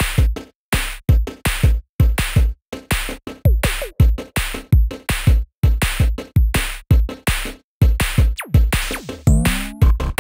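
Electronic music with a punchy drum-machine beat and deep bass kicks, chopped into short stabs separated by brief gaps, with a short pitched sweep near the end.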